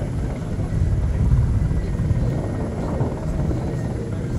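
Military rescue helicopter hovering close by, its rotors beating in a steady low chop.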